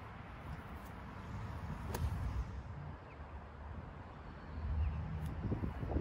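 Outdoor ambience dominated by a low wind rumble on the microphone that swells near the end, with a single faint click about two seconds in.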